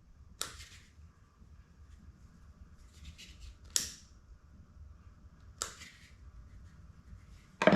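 Lighter clicking four times, a second or two apart, sharp short clicks, as it is lit to melt the cut ends of nylon paracord so they don't fray.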